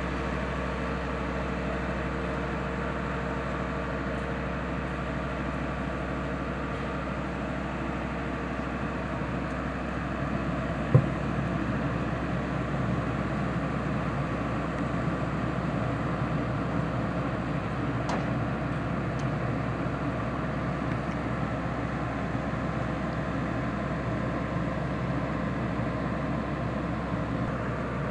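Diesel engine of a Bitelli BB650 asphalt paver running steadily at work, with the engine of the truck feeding it mixed in. A single sharp knock comes about eleven seconds in.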